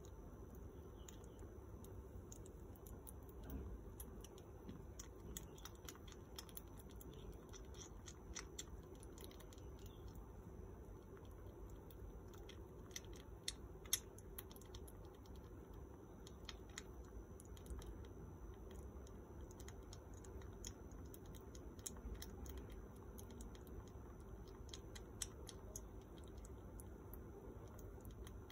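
Faint, irregular little clicks and smacks of a baby squirrel suckling milk from a feeding syringe, with one sharper click about halfway through, over a low steady room hum.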